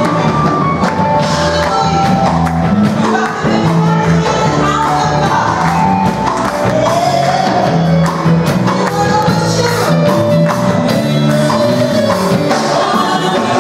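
Live church band playing an upbeat song with voices singing along and a steady beat.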